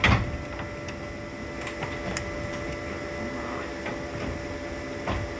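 A steady machine hum made of several fixed tones, with a sharp knock at the start, another near the end, and a few faint clicks of handling between them.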